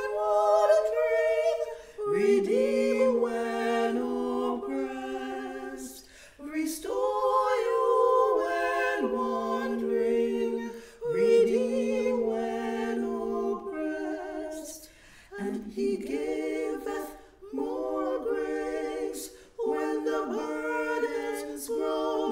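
Female a cappella trio singing a hymn in harmony, with several voices holding different notes at once. The singing goes phrase by phrase, with short breaks for breath between lines.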